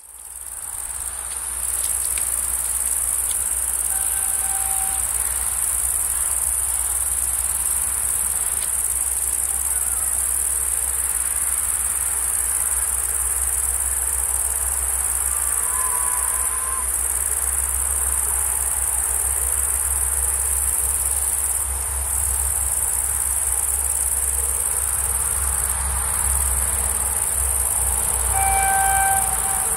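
Insects chirring steadily in the grass, a high continuous hiss, over a low rumble.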